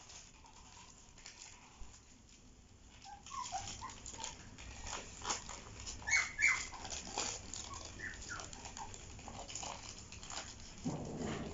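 Havanese puppies at play, giving short high whimpers and yips over paper crinkling as they chew and tug at a newspaper, starting about three seconds in.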